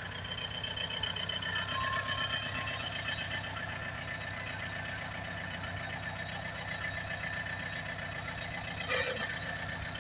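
Tractor engine running steadily with an even, knocking beat.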